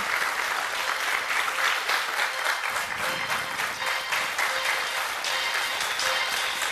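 Studio audience applauding, a dense run of many rapid claps. Music comes in faintly about halfway through.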